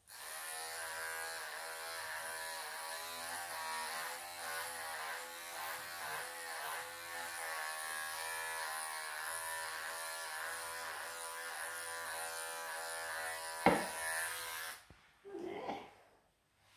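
Electric cat-grooming clippers running steadily as they shave through a long-haired Maine Coon's coat, their pitch wavering slightly as the blade works. A single sharp click comes shortly before the clippers switch off, about fifteen seconds in.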